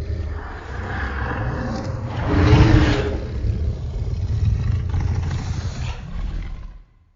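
Godzilla-style monster roar sound effect: one long, deep roar that swells about two and a half seconds in, then fades out near the end.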